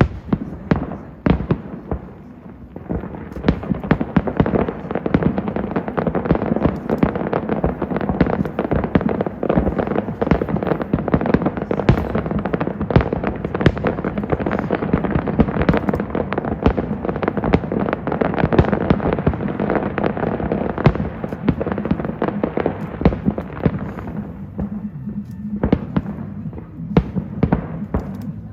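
A fireworks display: a few separate bangs, then a dense, nonstop barrage of bangs and crackling for most of the stretch, thinning to scattered bangs near the end. Music plays underneath.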